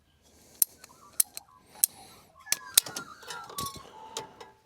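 A series of sharp clicks and snaps of hand tools working a truck's nylon air line as it is trimmed and pushed into its fitting, with squeaky plastic rubbing in the second half.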